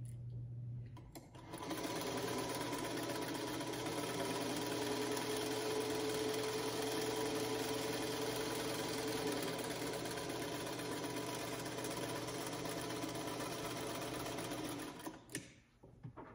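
Electric sewing machine running steadily as it stitches a quarter-inch seam in quilt fabric strips. It starts a second or so in and stops near the end, followed by a few short clicks.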